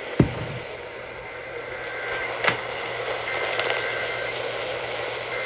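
Radio static: a steady hiss from an off-air receiver, with a sharp pop about a quarter-second in and a sharp click about two and a half seconds in.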